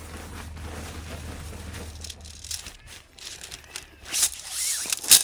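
Crinkling and rustling handling noises, with a loud tearing, hissing sound near the end that stops with a sharp click. A low hum underneath fades out about two seconds in.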